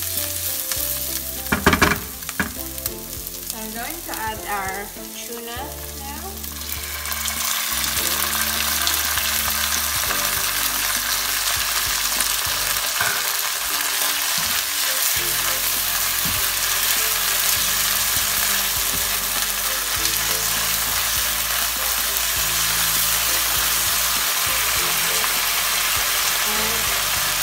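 Onions, garlic and tuna frying in oil in a nonstick pan, sizzling steadily while a silicone spatula stirs them. There are a few sharp knocks about two seconds in, and the sizzle grows louder about seven seconds in.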